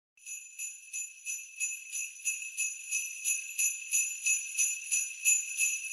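Jingle bells shaken in a steady rhythm, about three shakes a second, growing louder: the bell intro of a Christmas music track.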